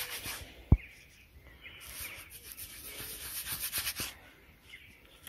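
Fingers rubbing soil off a freshly dug small coin, a Scottish turner, in quick repeated scratchy strokes: a short run at the start and a longer one in the middle. A single sharp thump comes just under a second in.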